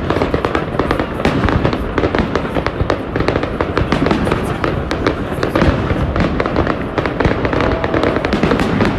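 Fireworks going off: a dense, continuous crackle of many rapid bangs overlapping one another.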